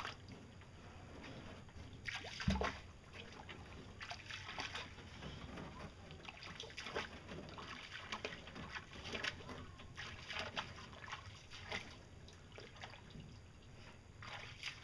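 Water splashing and sloshing as a person wades through shallow water pushing a small pedal boat, an irregular splash with each step, and one louder thump about two and a half seconds in.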